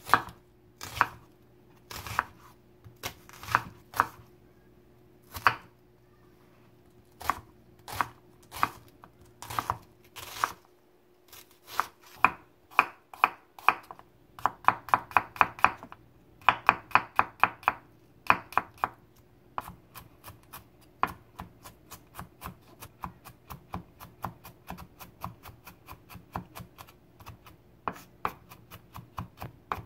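Kitchen knife cutting onion and then slicing and mincing garlic on a wooden cutting board: sharp knocks of the blade on the board, spaced about a second apart at first, then quick runs of chopping and many fast, lighter taps as the garlic is minced.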